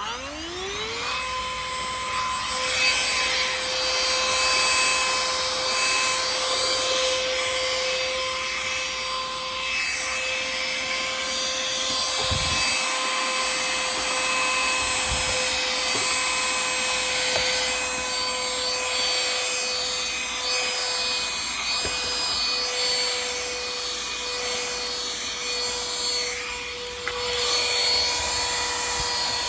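XREXS cordless handheld car vacuum switching on, its motor whine rising in pitch over about a second and then running steadily, with a rushing suction noise as it picks up dirt from the car's floor.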